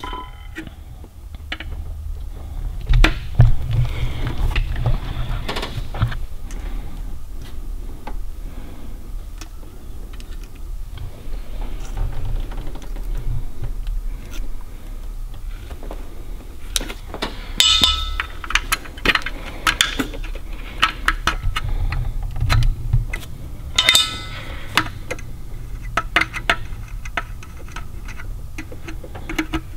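Needle-nose pliers and fingers working the small wire leads and terminals of a GM HEI distributor's ignition coil: light metal clicks, taps and plastic scrapes, with two short bursts of sharper clicking past the middle, over a low rumble.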